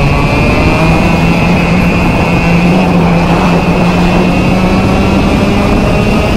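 Two-stroke kart engine running hard, its pitch climbing steadily as the kart accelerates, with a steady high-pitched whine alongside it.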